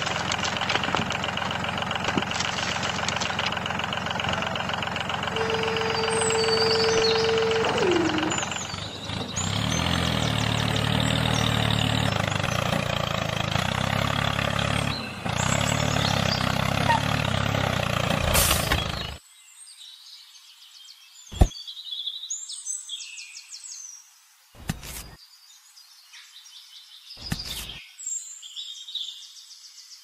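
Miniature model tractor's motor running steadily, dropping to a lower note about a third of the way in, then cutting off about two-thirds of the way through. After that, birds chirp in the quiet, with a few light knocks of small blocks being set down.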